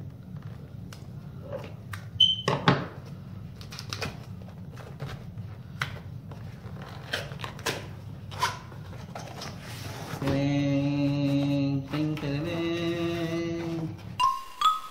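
Scissors snipping packing tape and a cardboard box being handled and its flaps opened: a run of small clicks and snips, the sharpest about two and a half seconds in. From about ten seconds in, a steady hummed tone is held for about four seconds, stepping in pitch once. Just before the end, a mallet-percussion jingle starts.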